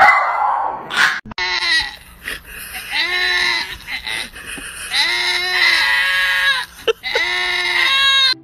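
Goats bleating: a run of about four or five loud, drawn-out calls that rise and fall in pitch, the longest over a second each. A short, loud noisy burst comes in the first second, before the calls start.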